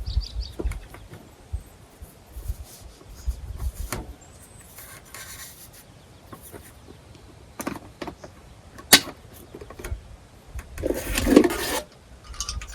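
Camp coffee gear being handled: scattered clicks, knocks and rubbing, with a sharp click about nine seconds in and a rushing noise lasting about a second near the end.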